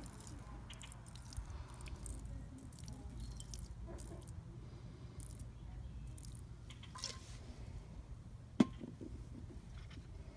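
Blue fondue fuel squeezed from a plastic bottle onto wood pellets: faint squishing and dripping with scattered small clicks, and one sharp click near the end.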